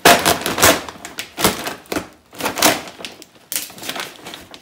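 A plastic sack of water-softener salt pellets being gripped and pulled open, the plastic crinkling and crackling in irregular bursts.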